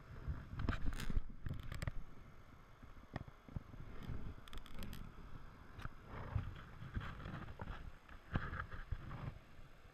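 Irregular splashing and sloshing of river water as a trout is released by hand and a landing net is swished through the shallows, mixed with knocks and rubbing from handling close to the camera.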